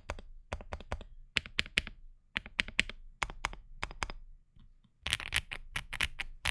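Typing on a Qwertykey QK65 mechanical keyboard fitted with Moyu Green Snake switches: quick, irregular runs of keystrokes, with a short pause about two-thirds of the way through.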